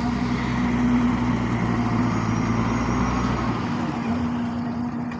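Road traffic with a motor vehicle's engine running close by, a steady hum over tyre and traffic noise; the deepest rumble drops away about three and a half seconds in.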